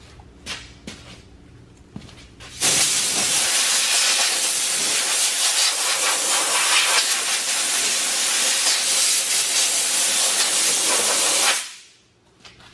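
A loud, steady hiss of a pressurized jet, starting abruptly about two and a half seconds in and cutting off sharply about nine seconds later, after a few light knocks.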